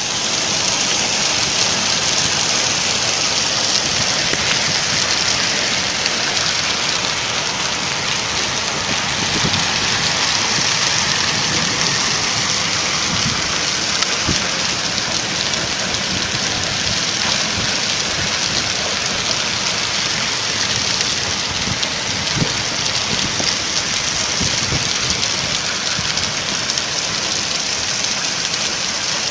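Heavy rain mixed with hail falling, a steady loud hiss with many scattered small knocks of hailstones striking.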